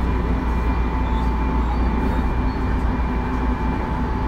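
Tobu 9050-series electric train standing at the platform, its equipment giving a steady low hum with a thin, constant high whine.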